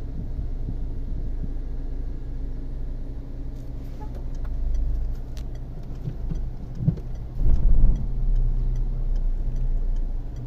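Car engine running at low speed, heard from inside the cabin while driving through floodwater, with a steady low hum and rumble. About seven and a half seconds in, a louder low rush comes for about half a second.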